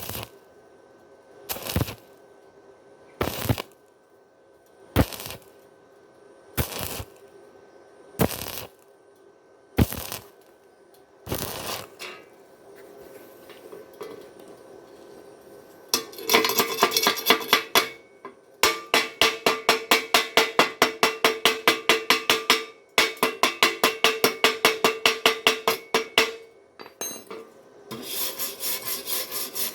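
Hand tools working welded steel: sharp ringing metal strikes about every second and a half for the first dozen seconds, then spells of rapid scraping on metal, about five strokes a second, with short pauses between spells.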